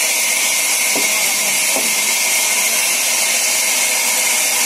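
Sawmill band saw running and cutting through a log: a loud, steady, high hiss with faint humming tones beneath it.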